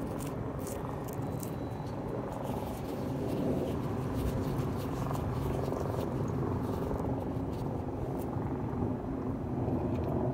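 Steady low rumble with a faint hum, machine-like, with a few light clicks in the first couple of seconds.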